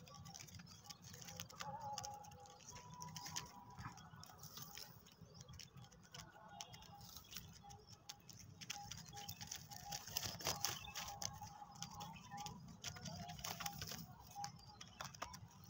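Black francolin chicks moving about in a wire cage: a faint patter of small taps and scratches, with a faint thin note repeating in the background.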